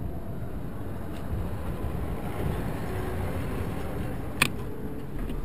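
Steady low rumble of street traffic as a truck towing a trailer loaded with a mini excavator passes close by, with one sharp knock about four seconds in.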